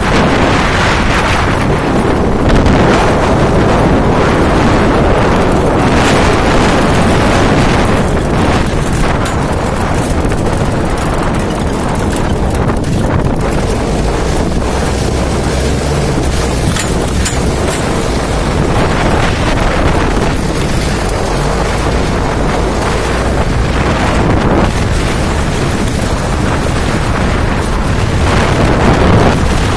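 Off-road jeep driving over a muddy dirt track: loud engine and rolling noise with heavy wind buffeting on the microphone, broken by frequent short knocks.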